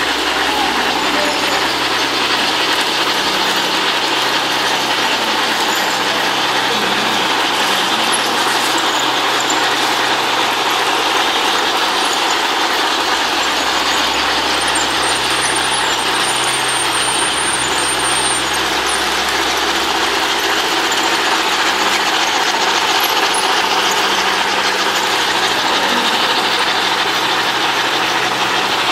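Model steam locomotives and their cars running around a model railway layout: a steady whirring rumble of motors and wheels on the track.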